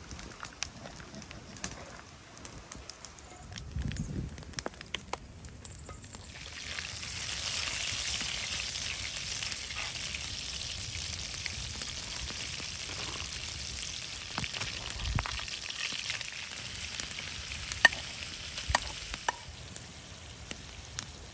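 Food frying in a pan: a steady sizzle that starts about six seconds in and dies down near the end, with scattered clicks and knocks.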